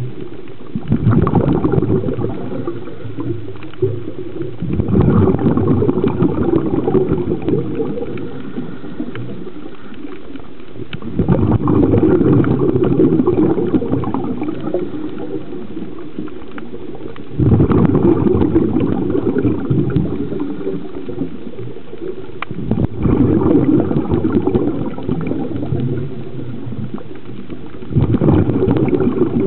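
A scuba diver's exhaled breath bubbling out of the regulator underwater, in six bursts of a few seconds each, one every five to six seconds, with a steadier noise between breaths.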